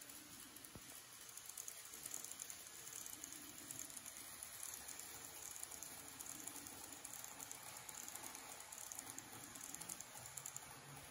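Model 583 series train running around the track, its wheels making a rapid, faint clicking over the rail joints. The clicking grows louder about two seconds in as the train passes close and eases off near the end.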